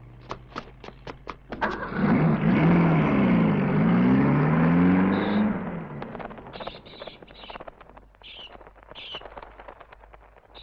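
A quick run of sharp clicks, then a car speeds past, its engine loud for a few seconds with its pitch rising and falling before fading away; faint high chirps follow near the end.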